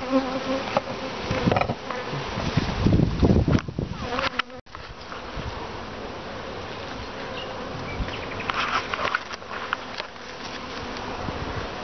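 Honeybee colony buzzing in an opened long hive. Louder rustling and a few knocks fill the first four seconds, broken off by a brief dropout, and after that the buzzing carries on steadily.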